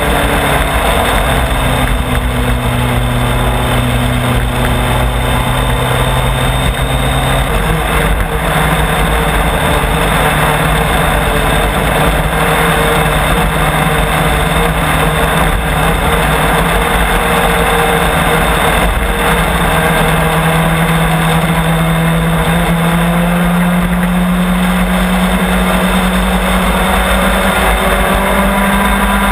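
Onboard sound of a Legends race car's engine running at steady part throttle behind the pace car under caution, over wind and road noise. The engine note shifts about seven seconds in and rises slowly later on.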